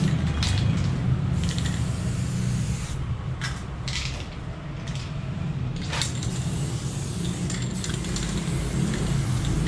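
Aerosol spray paint can hissing in repeated short bursts as black fill is sprayed onto a wall, over a steady low rumble.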